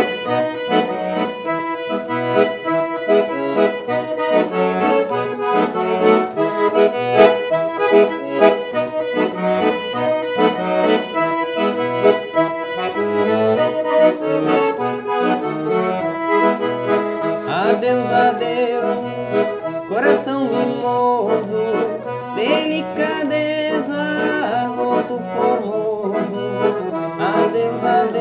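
Scala piano accordion playing an instrumental passage of a traditional gaúcho tune, a melody of quick notes over sustained chords.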